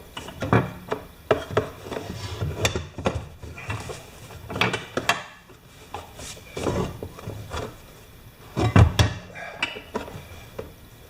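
Parts of a DeWalt 4-gallon air compressor being handled and fitted back together by hand: irregular clicks, knocks and scraping, with a loud cluster of knocks about nine seconds in.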